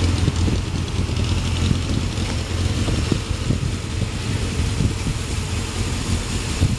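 Honda CBR400F's air-cooled inline-four running steadily through its stock exhaust, the engine giving little mechanical noise.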